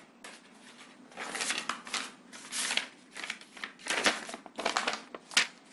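Sheets of paper rustling and crinkling as a document is handled and its pages are turned: a string of short, uneven rustles that starts about a second in.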